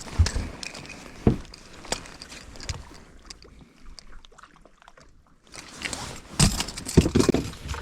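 Knocks, thumps and water sloshing aboard a fishing boat while a just-caught largemouth bass is landed and handled: a sharp knock at the start and another about a second in, then a louder cluster of knocks and splashing near the end.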